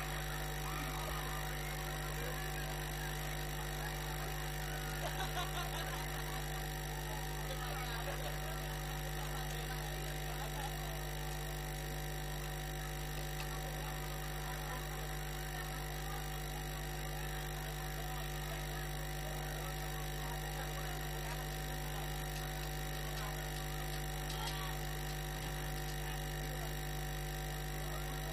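Steady electrical hum, even and unchanging, with faint crowd voices underneath.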